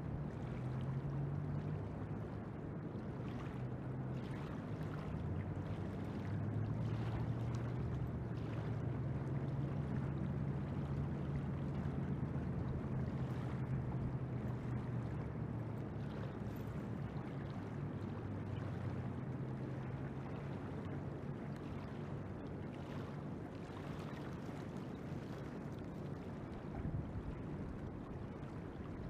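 Steady rush of flowing river water over shallow riffles, with a low hum underneath.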